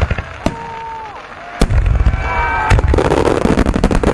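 Aerial firework shells bursting: a few separate sharp bangs, then from about a second and a half in a dense, continuous barrage of booms, with crackling over it in the last second.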